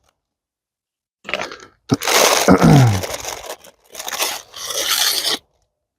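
Plastic and cardboard toy packaging crunching and scraping as it is handled. The sound comes in short bursts from about a second in and cuts off suddenly near the end.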